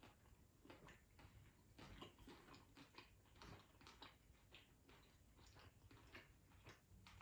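Very faint chewing: soft, irregular clicks and smacks of a person eating a small cheeseburger slider.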